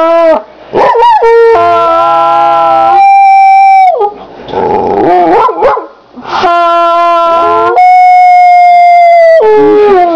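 A trumpet playing long held notes while a puppy howls along, the dog's wavering, gliding howls and yips coming between and over the steady notes.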